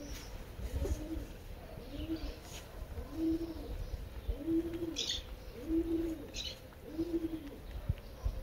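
A dove cooing: a steady series of low, arched coos, about one a second. A small bird chirps briefly a couple of times around the middle.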